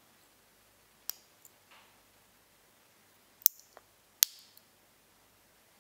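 Small metal heart locket clicking as it is handled between the fingers: a few sharp, short clicks, the loudest two close together a little past the middle.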